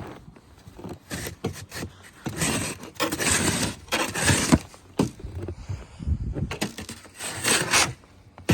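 Boots crunching and scraping through deep, fresh snow in a handful of irregular steps, the heaviest a little over halfway through and again near the end.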